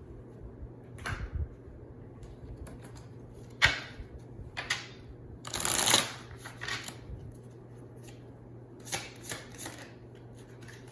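Tarot cards being shuffled and handled: a sharp snap about a third of the way in, a longer riffle around the middle, and a few softer flicks near the end, over a faint low hum.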